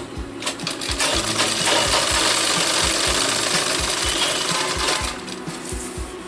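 Sewing machine stitching along a folded fabric edge. It runs fast and steadily for about four seconds from a second in, with lighter clicking before and after.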